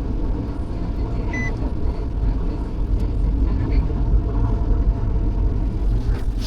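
Car engine idling steadily as it warms up in the cold, with a short electronic beep about a second and a half in.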